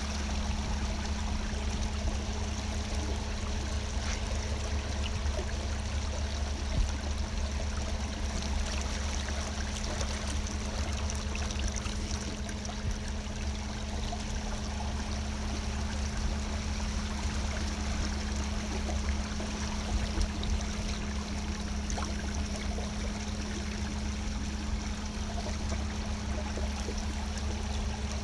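Water trickling and splashing against the hull of a slowly moving boat, over a steady low hum.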